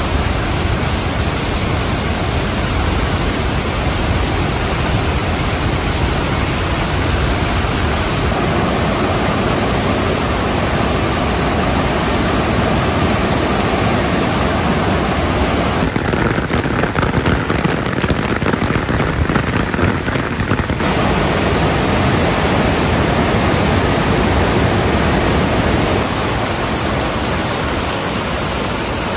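Floodwater overflowing a reservoir spillway: a loud, steady rush of churning, spraying water. Its tone changes abruptly several times as the shots cut from one view of the torrent to another.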